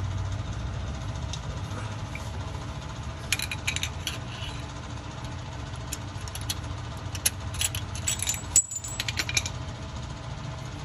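Light metallic clinks and rattles inside an open GM 10-bolt differential as the axle's C-clip is worked free, in two clusters about three and eight seconds in, over a steady low hum.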